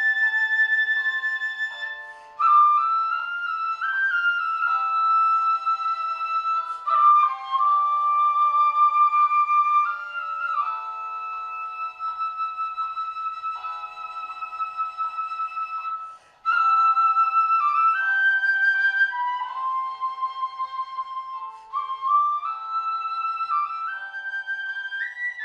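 Shinobue, the high-pitched Japanese bamboo transverse flute, playing a melody that steps from note to note over lower held notes. The music breaks off briefly about two and sixteen seconds in.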